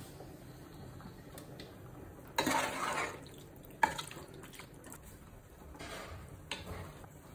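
Cooking sounds from a nonstick pot: a metal spatula stirring and knocking through thick chicken masala, with a couple of sharp clacks on the pan. Then dripping, par-cooked basmati rice is dropped in from a wire strainer, with a short wet splash. The sounds come as two brief noisy bursts, each with a sharp click.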